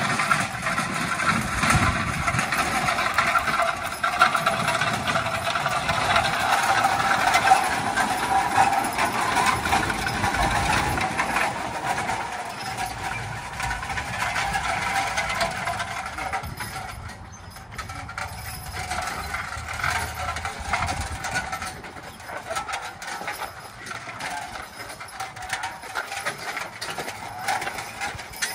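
Team of Percheron horses pulling a two-row horse-drawn corn planter over gravel: continuous metallic rattling and clanking from the planter and harness, with hoof falls and crunching gravel. It grows quieter after about sixteen seconds.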